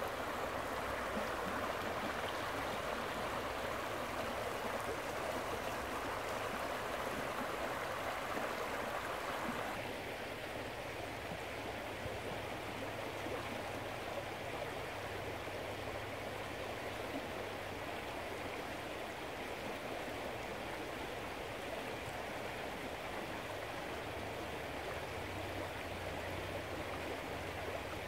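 Shallow creek water rushing over a rocky riffle, a steady rush that becomes a little quieter and duller about ten seconds in.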